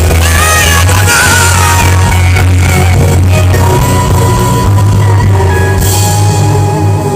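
Live worship music: held keyboard chords over a steady deep bass, with a voice singing over them in the first couple of seconds.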